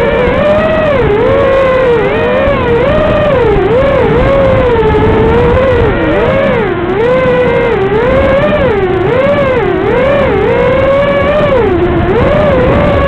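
FPV quadcopter's electric motors whining, the pitch rising and falling about once a second as the throttle is worked.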